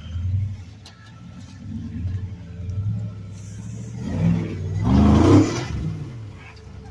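Off-road rock crawler's engine running at low revs, swelling now and then, and revved hard from about four seconds in, its pitch rising and then falling back as it works up over the rocks.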